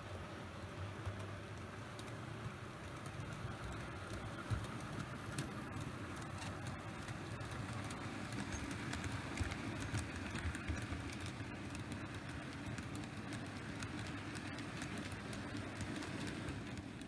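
00 gauge model freight train of tank wagons running along the track: a steady running noise of wheels on the rails, with scattered light clicks.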